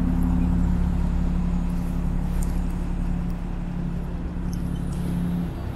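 Steady hum of a motor vehicle engine in street traffic over a low rumble; the hum breaks off briefly near the end.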